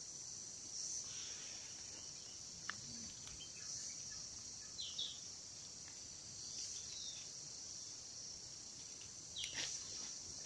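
Steady high-pitched drone of forest insects, with a few short chirps about halfway through and near the end.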